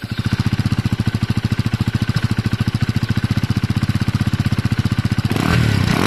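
KTM Duke 250's single-cylinder engine, just fired up, idling with a steady, even pulse; about five seconds in the revs climb.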